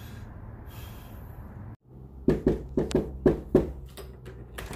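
A run of about six quick, sharp knocks on a door, starting about halfway through, with a steady low hum of background noise before them.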